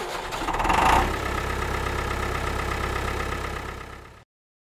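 An engine running at idle: it builds over the first second, then runs steadily with a fast low pulsing, tapers off and cuts off about four seconds in.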